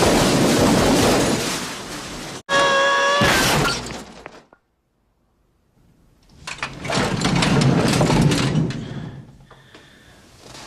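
Heavy metal tool chest crashing and clattering down a staircase, in two long bursts of banging about four seconds apart. Between them comes a short high-pitched cry.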